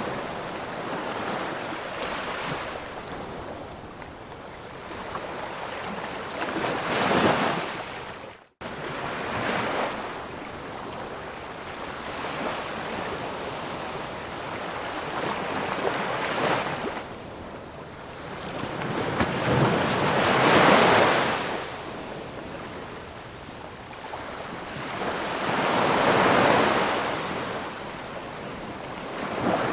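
Ocean waves rolling in and breaking on the shore, the surf swelling and ebbing in slow surges every few seconds, with one brief break in the sound about a third of the way in.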